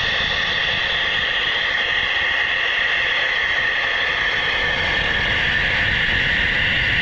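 Sodick wire EDM making its rough cut with zinc-coated Z Plus wire, heard in the water-filled work tank: a steady, even hiss from the spark erosion.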